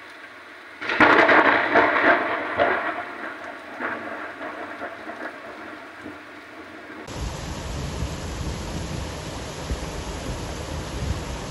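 A thunderclap about a second in, sharp and crackling, then rolling away over several seconds. After a cut, steady downpour rain.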